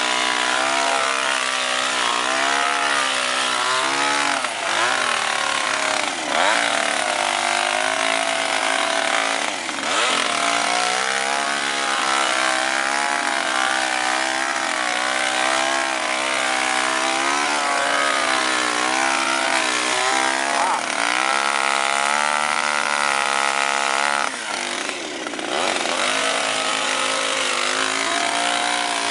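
Kubota tractor's direct-injection diesel engine running under load as it drives a tractor-mounted sugarcane harvester cutting cane. Its pitch wavers up and down continuously, with a few brief dips in loudness.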